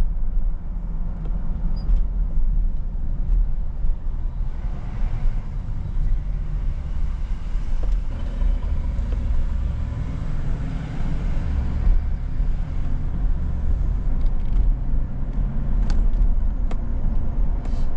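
A vehicle's engine and tyres on wet pavement, heard from inside the cabin while driving: a steady low rumble with a haze of road noise that swells a little midway.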